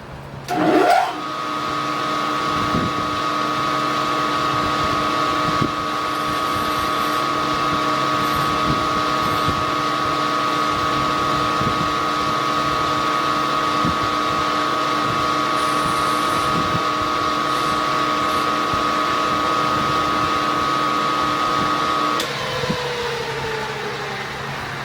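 Electric drill motor spinning up quickly, running at a steady speed with a steady whine for about twenty seconds, then switched off and winding down near the end.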